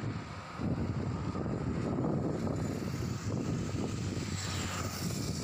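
Steady low rumble of roadside outdoor noise, with no speech.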